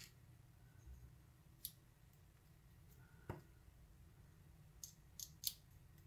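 Near silence broken by a few faint metallic clicks of steel tweezers against a Schlage lock cylinder and its pins, as the pins are picked out while the lock is gutted: one click about a second and a half in, another about three seconds in, and three close together near the end.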